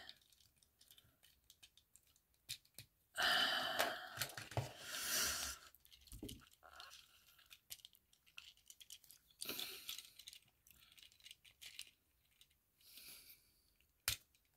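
Plastic parts of a Legacy Armada Hot Shot Transformers action figure being handled and transformed: scattered light clicks and scraping of plastic, with a longer rustling, rubbing burst a few seconds in and a sharp click near the end.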